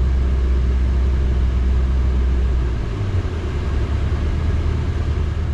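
A car engine and road rumble make a steady low drone while the car is driven. The drone shifts slightly lower about three seconds in.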